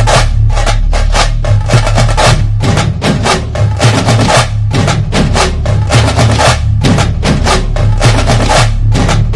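Music driven by rapid drum and clicking percussion strikes over a steady deep bass.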